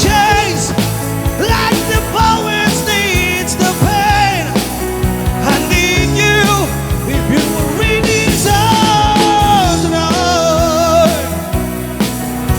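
Rock band playing a song live: drums, bass and a bending lead melody line over a full, loud mix.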